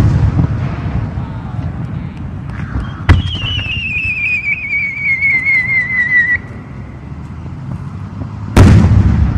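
Fireworks: a sharp bang about three seconds in, followed by a warbling whistle that falls in pitch for about three seconds, then a loud boom near the end, with the rumble of a burst dying away at the start.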